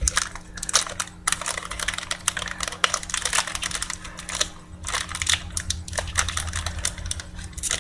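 A sealed pack of trading cards being opened by hand: the wrapper crinkles and the cards click in a dense, irregular run of small crackles.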